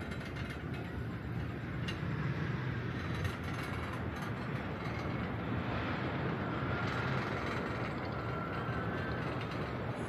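Chairlift in motion: a steady rumble of the haul cable and chair running over the sheaves, with a few light clicks and a faint thin whine in the second half.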